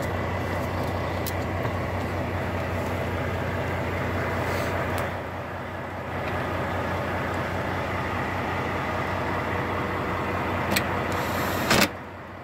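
Volvo VNL truck's diesel engine idling steadily, heard from inside the cab, with a short louder burst of noise near the end.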